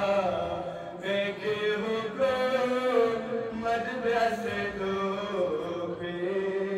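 A man's solo voice chanting a devotional qasida in Balti, in long, held melodic lines, with a short break for breath about a second in.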